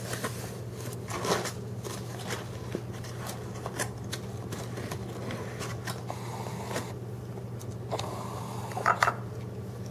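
Light scattered clicks and rustles over a steady low hum, with a few louder scrapes near the end as a plastic spoon stirs flour into water in a bowl.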